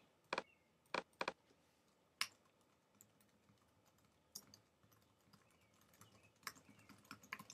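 Typing on a computer keyboard: faint keystroke clicks coming at irregular intervals, a few at a time, with gaps between them.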